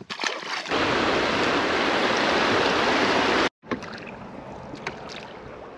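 Rushing river water around an inflatable raft in a riffle: a loud, even rush that cuts off abruptly about three and a half seconds in, then continues more quietly.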